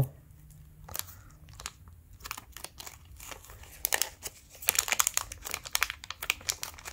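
Foil trading-card booster pack crinkling and crackling as it is handled and worked open by hand, with a dense run of crackles about four to six seconds in.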